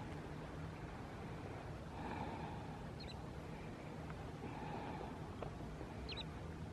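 Steady low rumble of a boat's motor and water, with a short high bird chirp about three seconds in and another near the end.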